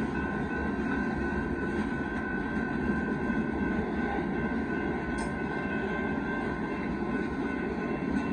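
Loaded rock-train freight cars rolling steadily past, their wheels running over the rails in a continuous rumble, with a steady high-pitched tone held over it.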